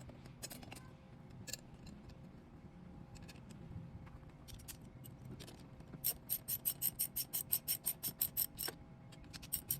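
A 10 mm ratchet wrench tightening a bolt on a motorcycle brake: a few scattered metal clicks, then about six seconds in a fast, even run of ratchet clicks, about five a second, which stops briefly and starts again near the end.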